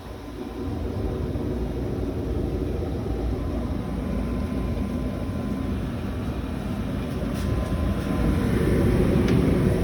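A steady low rumble of running machinery, growing louder in the last two seconds.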